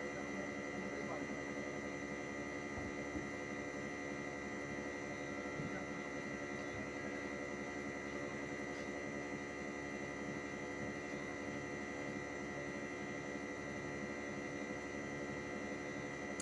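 Split air-conditioner outdoor unit running: a steady machine hum with a constant high whine.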